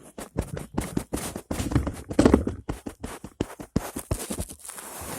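Rapid, irregular clicking and tapping, several sharp clicks a second with a louder cluster about two seconds in.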